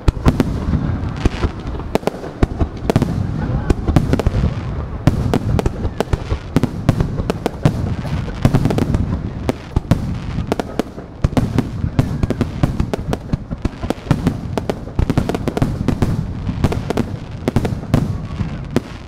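Fireworks barrage: shells launching from the ground and bursting overhead in rapid succession, a dense run of sharp bangs and cracks over a continuous low rumble.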